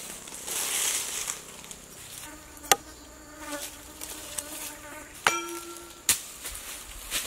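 A thrown knife hitting a tree trunk: three sharp knocks, the loudest a little over two and a half seconds in, the others after about five and six seconds, the second followed by a short ringing tone. An insect buzzes steadily through the middle.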